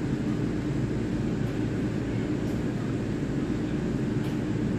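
Taiwan Railway EMU3000 electric train set alongside the platform, giving a steady drone with a low hum and no breaks.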